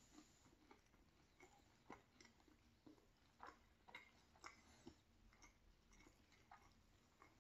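Faint chewing of a mouthful of food with the mouth closed: soft, irregular wet mouth clicks, about one or two a second.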